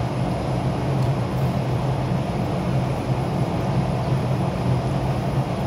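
Steady low mechanical hum and rumble of city background noise, with a constant low-pitched drone that does not change.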